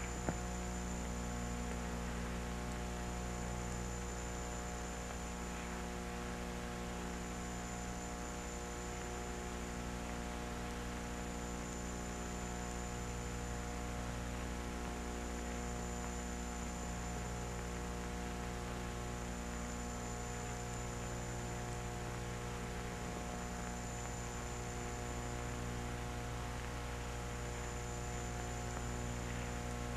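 Steady electrical mains hum, a low drone with a ladder of overtones, over light hiss and a faint high whine, on the soundtrack of a 1964 documentary film. No voice or music is heard.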